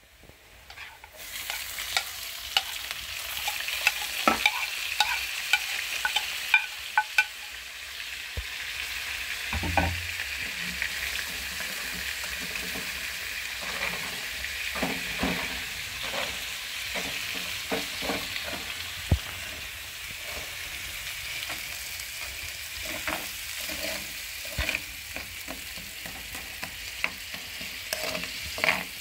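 Diced potatoes sizzling steadily in oil in a frying pan, with a spoon scraping and clicking against the pan as they are stirred.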